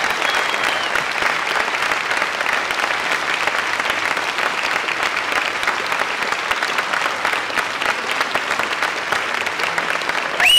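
Audience applauding steadily, a dense, even clapping. Right at the end a loud tone rises in over it.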